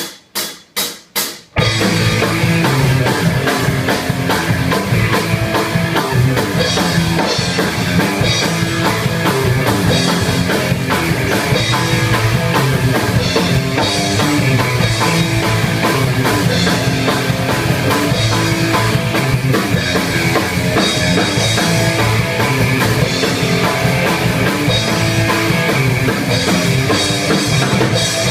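Rock music with drum kit and guitar, opening with four sharp hits before the full band plays on at a steady loud level.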